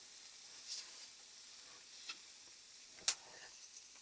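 Shrimp frying in hot oil in a stainless steel pan: a faint steady sizzle with a few sharp spattering pops, the loudest about three seconds in.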